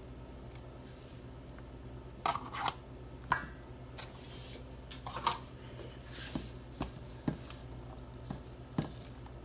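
Scattered clinks and knocks of a serving spoon and a container against a stainless steel mixing bowl as diced bell peppers are added to cooked ground beef and mixed in by hand. A steady low hum runs underneath.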